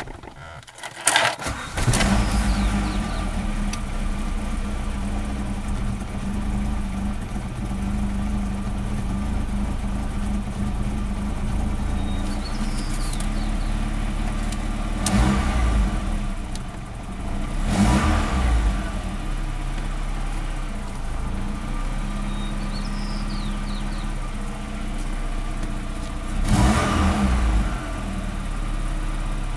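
1990 Saab 900S's four-cylinder engine starting, then idling steadily, with a few short revs about halfway through and again near the end.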